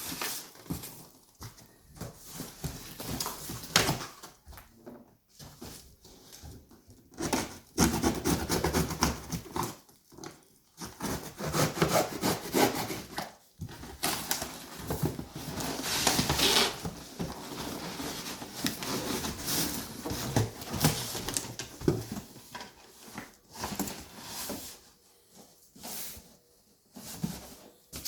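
Styrofoam packing pieces being handled, pulled from the box and dropped on the floor: irregular rubbing and scraping with scattered knocks and clicks.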